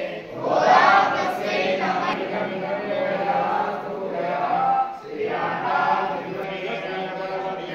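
A group of men and women chanting a devotional prayer together in a melodic unison recitation, with a brief break about five seconds in.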